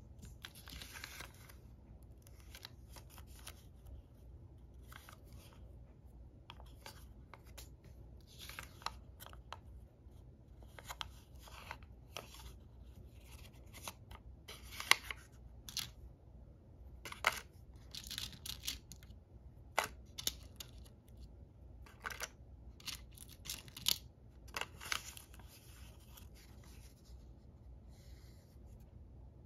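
Folded origami paper rustling and crinkling as it is handled, in short crisp rustles at irregular intervals, the sharpest about fifteen seconds in. A faint steady low hum lies underneath.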